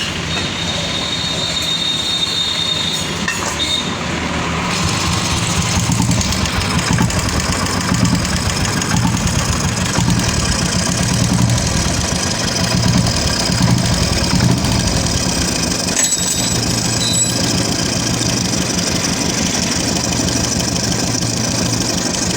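Royal Enfield Classic 350's single-cylinder UCE engine running steadily with tappet noise from the top end, which the mechanic puts down to a weak oil pump and a failed hydraulic tappet.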